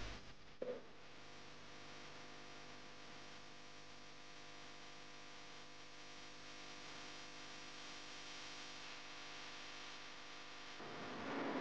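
Faint steady hum with a single sharp click about half a second in; a louder hiss comes in near the end.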